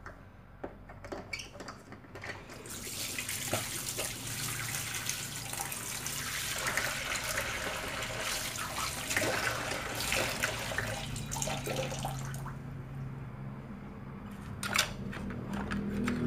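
Water running steadily for about ten seconds. It starts a few seconds in and stops a few seconds before the end, with a few light knocks and clicks around it.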